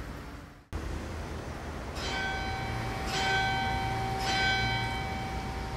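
A single church bell, the church's bell 4, swinging and ringing. It strikes three times about a second apart, starting about two seconds in, and its hum carries on between the strikes.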